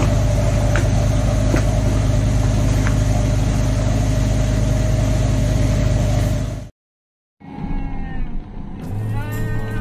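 Motor vehicle running steadily, a constant engine hum over road rumble, which cuts off abruptly about seven seconds in.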